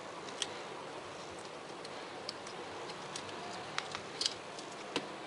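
Scattered faint ticks and crackles of fingers pressing and smoothing vinyl wrap film onto a plastic key fob, with a small cluster of clicks about four seconds in, over a steady hiss.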